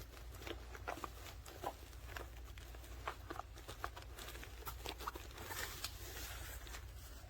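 Weighted vest being handled: scattered soft rustles and light knocks from the nylon fabric, webbing straps and the plates inside, over a low steady hum.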